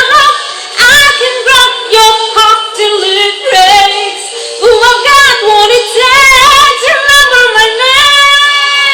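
A woman singing a pop song through a Tzumi PopSolo Bluetooth karaoke microphone, holding notes with a wavering vibrato about two-thirds of the way through.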